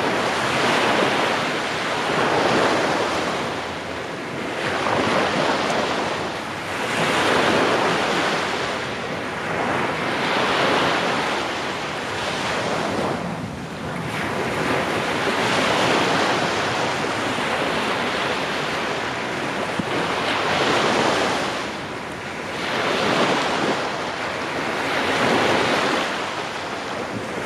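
Small sea waves breaking and washing up a sandy beach, the surf swelling and falling back every two to three seconds.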